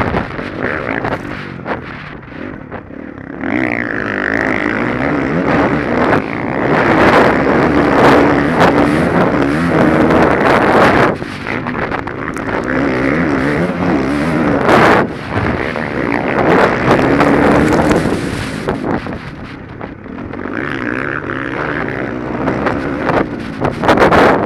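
Honda motocross bike engine revving up and down as it is ridden hard over a dirt track, heard from a helmet-mounted camera with wind buffeting the microphone.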